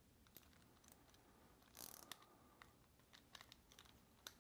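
Faint, irregular small clicks of metal parts as the handle and handle nut of an Abu Garcia low-profile baitcasting reel are fitted and turned by hand. There is a brief scrape about two seconds in and a sharper click near the end.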